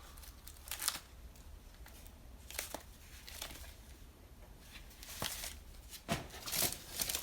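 Small items being handled and sorted by hand: soft rustling with a few scattered light clacks and taps, busier near the end.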